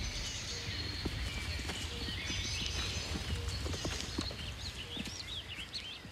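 Bison walking through grass, their hooves giving scattered soft thuds over a steady low rumble, while small birds chirp and twitter, most busily around the middle.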